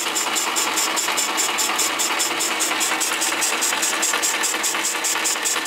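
Old Atlas metal lathe running under power and turning a cast aluminium flywheel, the tool cutting its rim. A steady motor hum sits under a high cutting hiss that pulses evenly about five times a second.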